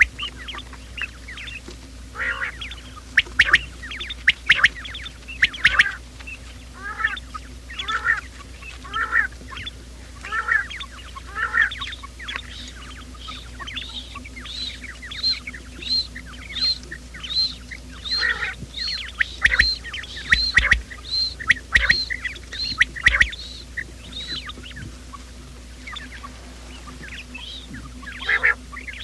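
Quail calling: many short, high calls repeated in series. In the middle they settle into an even run of about one and a half calls a second, then pause near the end. A faint steady hum lies beneath them.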